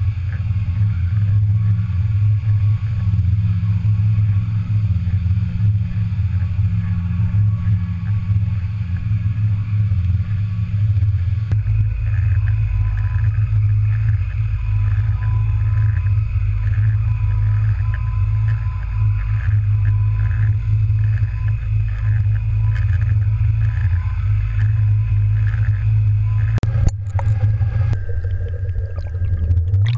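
Steady low drone of a trolling boat's engine and propeller with water rushing past, muffled as heard from a GoPro towed on a downrigger cannonball. About a third of the way in the drone deepens and a faint pulsing whine joins it, and there is a brief break near the end.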